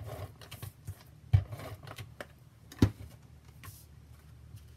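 Adhesive tape runner drawn across cardstock in short strokes, with two sharp knocks about a second and a half apart.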